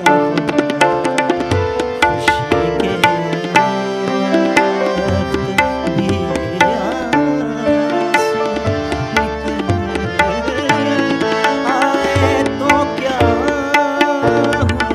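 Indian vocal music: a male singer accompanying himself on harmonium, with tabla keeping a steady rhythm. The harmonium's held notes run throughout, and the voice turns through wavering ornaments near the end.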